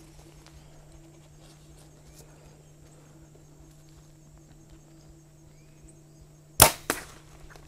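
Bow shot at a whitetail buck: a loud sharp crack of the bowstring's release, then a second smaller crack about a third of a second later as the arrow strikes. A faint steady hum runs underneath.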